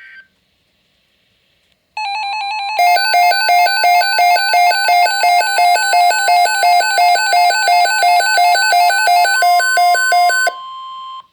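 Emergency Alert System weather-radio attention signal. After a short silence, a steady electronic tone begins about two seconds in. About a second later a loud pulsing alarm joins it at roughly two beats a second; the pulsing stops shortly before the end, leaving the plain steady tone.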